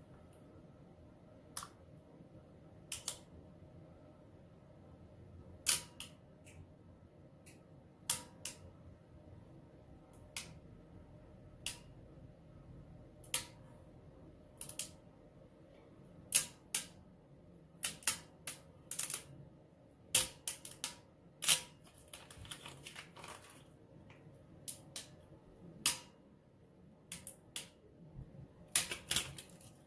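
Irregular sharp clicks and light crackles as fingers press and rub vinyl lettering onto a wheel rim, coming more often from about halfway on.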